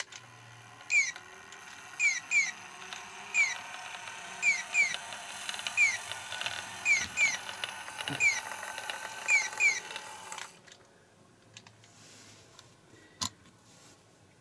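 Japanese audible pedestrian-crossing signal playing its electronic 'piyo' bird-chirp tone: one falling chirp, then a quick pair, repeating about every 1.2 s over a steady hiss. It stops about ten seconds in, and a single sharp click follows near the end.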